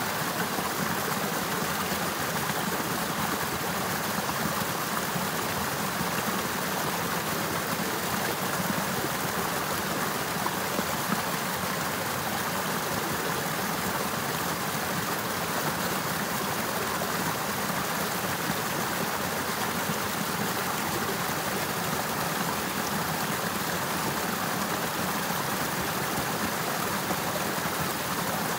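Water flowing steadily in a frozen river, an even, unbroken rush of running water.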